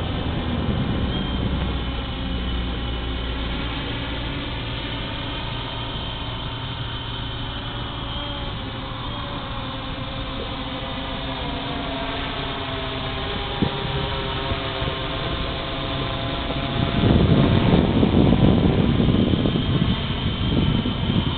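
Multicopter's electric motors and propellers whining in flight, a stack of tones that slowly slide up and down in pitch as the throttle shifts. From about three-quarters of the way through, a louder low rushing noise covers it.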